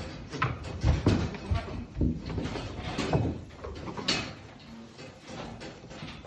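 A castrated goat making short, irregular calls, behaving as if in rut, with a few sharp knocks in between.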